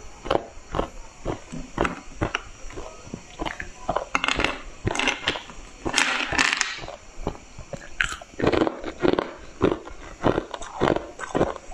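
Close-miked crunching and chewing of colored ice, with sharp, irregular cracks several times a second and a louder, denser stretch of crackling in the middle.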